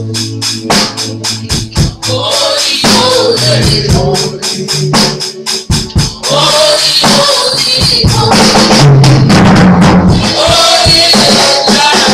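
Live gospel praise music: women singing into microphones over drums and shaken percussion, amplified through loudspeakers, with a steady beat.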